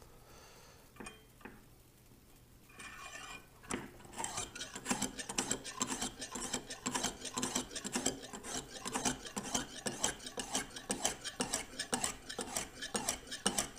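Lansky 600-grit honing stone stroked quickly back and forth along a steel knife edge, a dense scraping rasp. The stroking starts about four seconds in, after a few light handling clicks.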